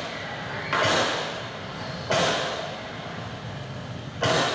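Sound track of a night-time street video played over a hall's loudspeakers: three sudden loud, noisy bursts, each fading away over about half a second.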